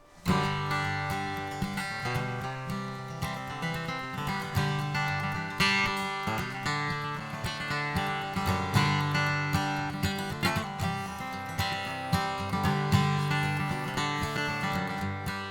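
Acoustic guitar strumming chords, starting suddenly at the outset.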